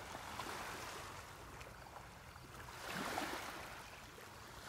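Small waves lapping and washing onto a stony beach, one wash swelling louder about three seconds in.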